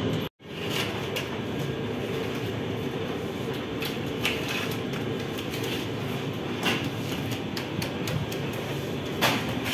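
Bakery oven and machinery running with a steady mechanical rumble. A few sharp clatters are heard as flatbread is pulled off the hot pebble bed of a sangak oven. The sound cuts out for a moment just after the start.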